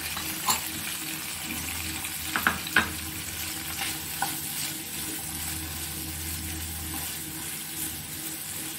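Chopped onion, tomato and green capsicum sizzling in hot oil in a frying pan while a wooden spatula stirs them, with a few sharp knocks of the spatula on the pan, three close together about two and a half seconds in.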